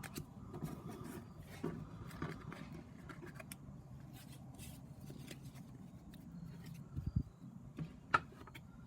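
Pokémon trading cards and pack wrappers being handled, with faint rustling and scraping and a few light knocks near the end.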